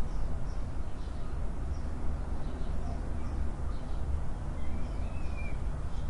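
Ambience of birds chirping faintly over a steady low rumble, with one clearer, arching call about five seconds in.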